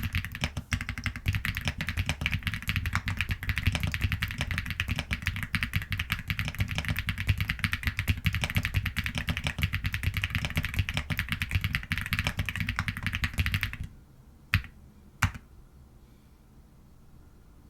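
Fast, continuous typing on an Epomaker Galaxy 70 aluminium-bodied mechanical keyboard with Huano Blossom 40 gf linear switches, giving light, crisp keystrokes. The typing stops about three quarters of the way in, and two single keystrokes follow.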